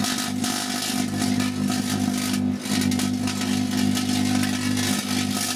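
Microwave oven running with its cover off: a steady electrical hum from its transformer and magnetron, with crackling from aluminium foil arcing inside. The hum breaks off briefly about halfway through.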